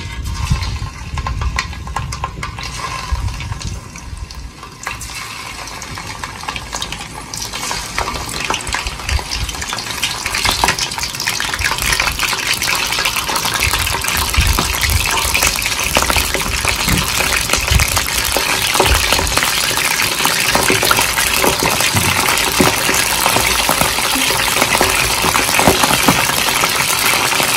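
Whole sparrows deep-frying in hot oil in a steel wok: a crackling sizzle that is faint at first, builds over the first dozen seconds as more birds go into the oil, then holds loud and steady.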